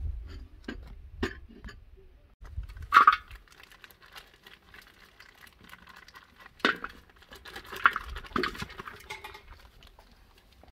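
A blackened metal cooking pot knocking and clanking as it is handled on a clay hearth, with a handful of sharp clanks, the loudest ringing briefly about three seconds in. Later a plastic packet of vegetable oil crinkles as it is squeezed over the pot, between a few more knocks.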